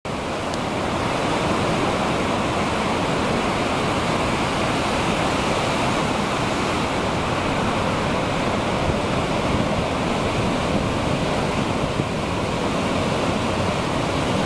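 Ocean surf breaking and washing up the beach: a steady rush of white water with no let-up.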